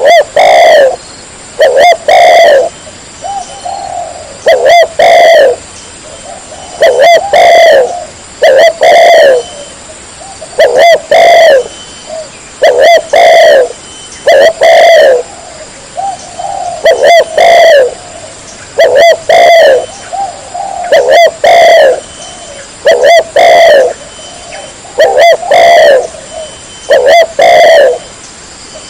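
Spotted dove cooing loudly and close, repeating its phrase about once every two seconds.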